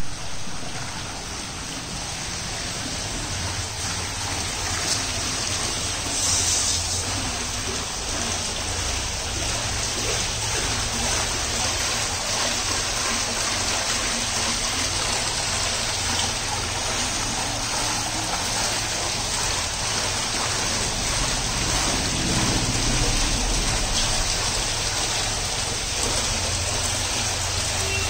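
Water spilling over the ledge of a shallow stone courtyard pool, a steady rushing, splashing hiss, with a low rumble beneath it.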